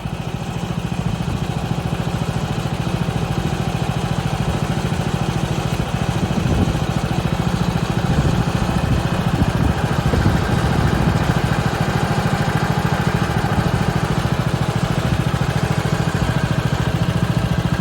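Gas engine of a Woodland Mills HM126 portable bandsaw mill running steadily, getting a little louder from about six seconds in.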